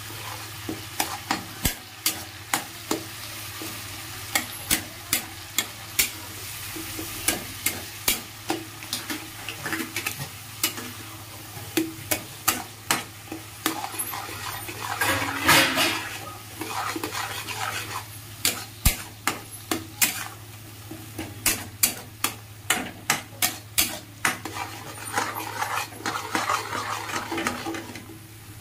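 A metal spatula stirs and scrapes onion paste around a metal kadhai, clinking against the pan at about one to two strikes a second, over the sizzle of the paste frying in oil. The sizzle swells briefly about halfway through.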